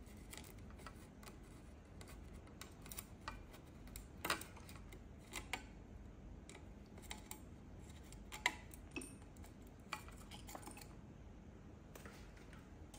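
Light, scattered clicks and taps of a small screwdriver working a screw out of a circuit-board protection plate, then the plate being lifted off and handled. The sharpest click comes about eight and a half seconds in.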